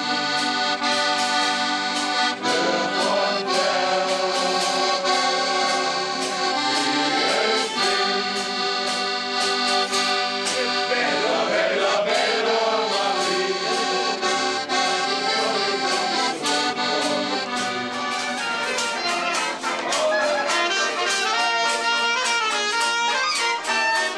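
Live music from a small acoustic band: held reedy chords over a strummed acoustic guitar, with saxophone.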